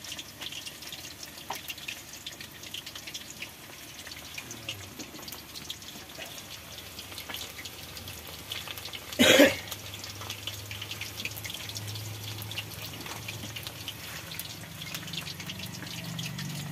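Battered meat kebabs deep-frying in hot oil in a steel kadhai, the oil sizzling and crackling steadily. A brief loud noise cuts through about nine seconds in.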